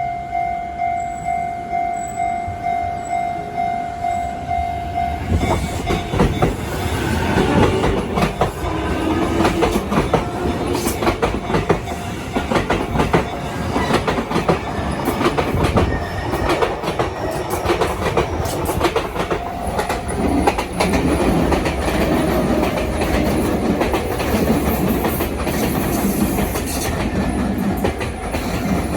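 Japanese level-crossing warning bell ringing in a steady, even pulse. About five seconds in, a Sotetsu electric train arrives and rolls over the crossing, with wheel and rail-joint clatter that drowns the bell and runs on to the end.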